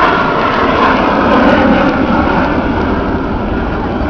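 Jet noise from Avro Vulcan XH558's four Rolls-Royce Olympus turbojets as the bomber flies past, a loud steady roar that peaks about a second and a half in.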